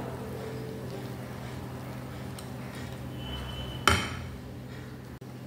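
Wire whisk stirring thick cupcake batter in a glass bowl, then one sharp clink about four seconds in as the whisk knocks against the glass. A steady low hum runs underneath.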